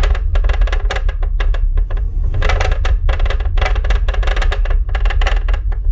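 Aperion Bravus II 12D subwoofer playing deep movie bass with a rapid, irregular clicking rattle over it. Its driver appears to have sagged, and the owner believes the rattle is probably doing damage to it.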